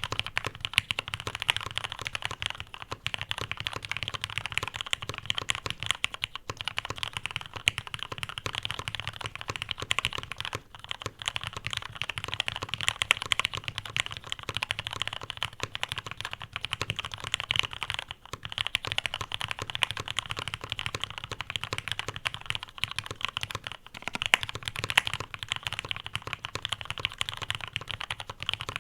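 Fast continuous typing on a custom top-mount mechanical keyboard with an aluminium plate, lubed linear Cherry MX Black switches and thick CRP Tulip keycaps: a dense stream of keystrokes, each a click with a low thock, with a few brief pauses.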